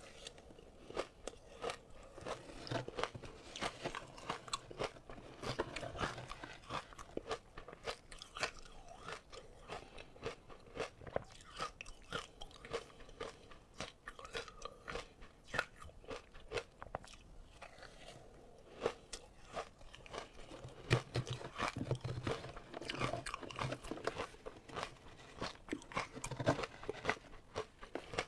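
Ice being bitten and chewed close to the microphone: a dense, continuous run of sharp crunches and cracks.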